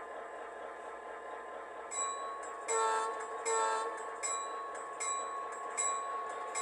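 Model diesel locomotive sound unit: a steady engine drone, the locomotive bell starting to ring about two seconds in at a steady beat, and two short horn blasts, the signal for moving forward.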